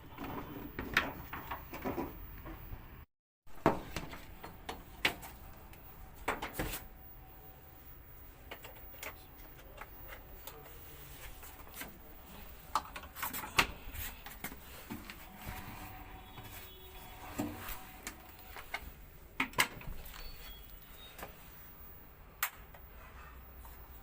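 Scattered clicks, knocks and scrapes of hands and tools working on a washing machine's parts, irregular and spread through the stretch, with a few sharper knocks standing out.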